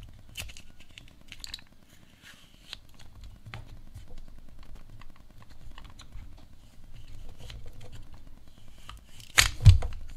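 Plastic clicks and rubbing as a tripod quick-release plate is pushed into and pulled out of a tight-fitting 3D-printed mount again and again. There is one louder knock near the end.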